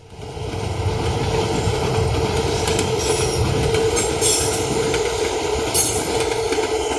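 Freight container train rolling past at close range: a steady rumble of wagons on the track, with short high-pitched wheel squeals a few times partway through.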